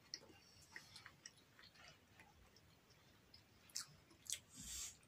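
Faint eating sounds of shrimp being chewed, with scattered small clicks, two sharper clicks about four seconds in and a short rustle just after.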